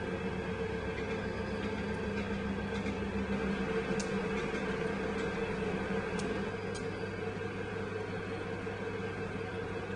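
Electric potter's wheel motor running with a steady hum while a large pot is thrown, its speed kept low by a foot controller. A few faint clicks about four and six to seven seconds in.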